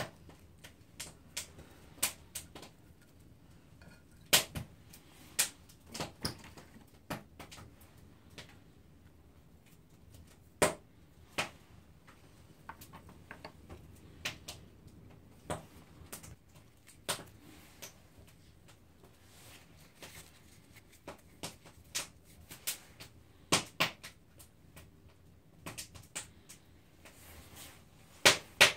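Dry twigs being picked up and set down on a stone slab as they are stacked into a small teepee: light, irregular wooden clicks and taps, a few seconds apart and sometimes in quick pairs.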